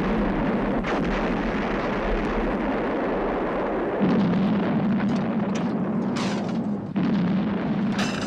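Movie sound effects of a gasoline tanker truck exploding: a continuous blast-and-fire rumble, with fresh blasts cutting in suddenly about four seconds in and again about seven seconds in.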